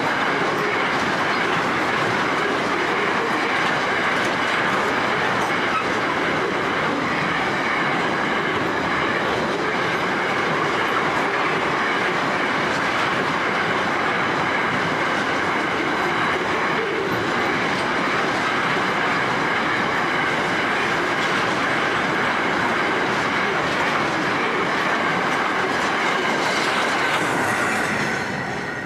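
Container wagons of a freight train rolling past: a steady noise of steel wheels running on the rails, dropping away near the end as the last wagon goes by.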